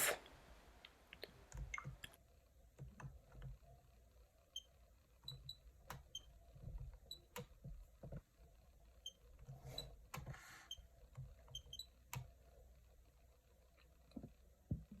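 Faint scattered clicks and short high beeps from a Nintendo Switch as its drifting joysticks are moved, over a low hum.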